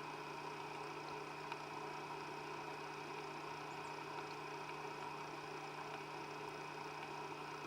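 Faint steady electrical hum over a low hiss, with several fixed tones and no other distinct sounds.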